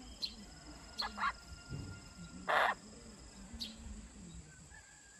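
Eurasian jay giving short, harsh rasping calls, a couple of brief ones and the loudest about two and a half seconds in.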